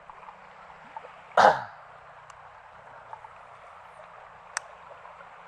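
Steady rush of flowing floodwater, with one short, loud, noisy burst about a second and a half in and a sharp click near the end.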